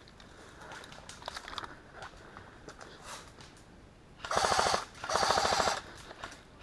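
Airsoft electric rifle (AEG) firing two short full-auto bursts back to back, a fast even rattle of shots, starting about four seconds in after quieter rustling of movement.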